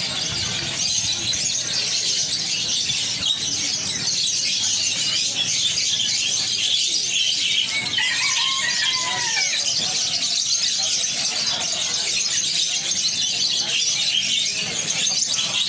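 Dense chorus of many caged songbirds chirping and twittering at once, with a couple of clearer, lower call notes about eight seconds in.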